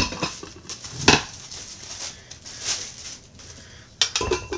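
Glass slow-cooker lids with metal rims being set down onto ceramic crock inserts: a few sharp clinks and knocks, the loudest about a second in.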